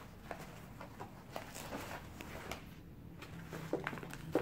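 Faint rustling and light scattered clicks of hands handling a child's armour jacket, its fabric and hard plastic plates, with a sharper click near the end.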